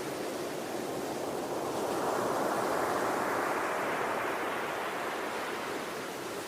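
Ocean waves washing onto a shore: a steady hiss of surf that swells into one larger wave about two seconds in and eases off again near the end.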